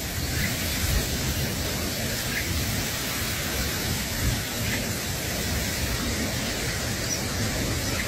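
Steady, even hiss with a low rumble beneath it, and a few faint short chirps now and then.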